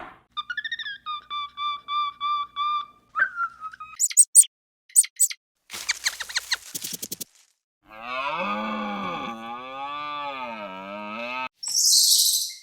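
A string of different animal calls: short repeated squeaky notes, a few high chirps and a rapid clicking trill, then a cow's long wavering moo of about four seconds, ending with a short hiss.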